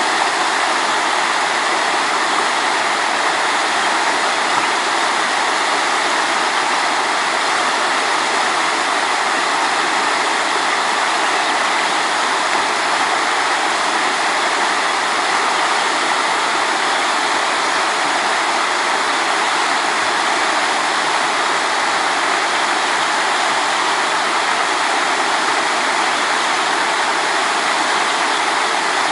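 Steady, unbroken rush of running water, loud and even throughout, with its energy in the middle and upper range like a fast-flowing river over stones.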